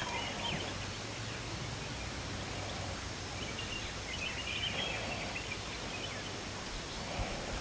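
Steady outdoor field noise with a faint low hum and a few faint, brief bird chirps, mostly three to four and a half seconds in.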